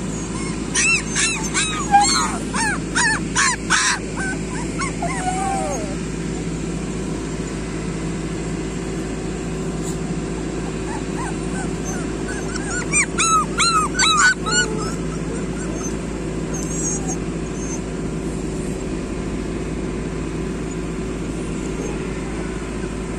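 Puppies yelping and whimpering in quick, high-pitched cries, one run about a second in and another around the middle, over a steady low hum.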